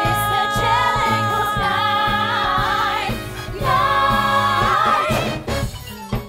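Stage musical number: ensemble voices singing long held notes over the backing track, in two phrases. The singing dies away near the end as drum hits come in.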